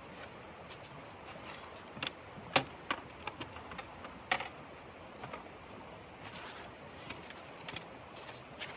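Wood fire in a stove crackling: irregular sharp pops and snaps over a steady hiss, the loudest pops about two and two and a half seconds in and again just past four seconds.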